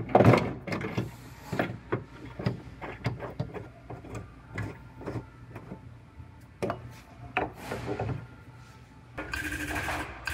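Irregular metal clanks, knocks and clicks as a collision-repair pulling post and its chain are set up, with a loud knock at the very start. Near the end a steady, rhythmic mechanical sound starts up.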